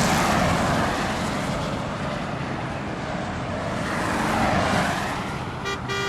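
Road traffic passing in a loud, steady rush that swells and fades twice. A vehicle horn sounds briefly near the end, then again.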